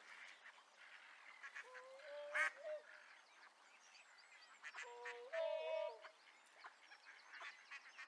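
Eider ducks calling faintly: two short bouts of pitched calls, about two seconds in and about five seconds in.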